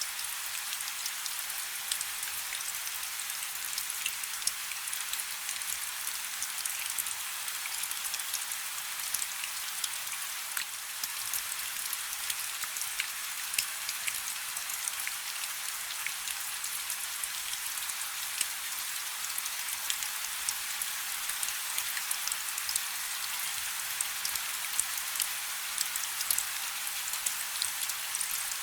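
Steady rain: an even hiss with many separate drops ticking sharply all through.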